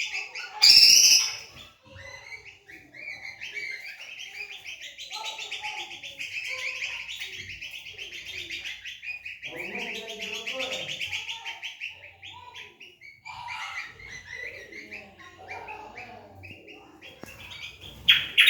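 Kecial kombok, a Lombok white-eye kept as a cagebird, singing a long, rapid twittering song without a break, with louder, sharper chirps about a second in and again near the end.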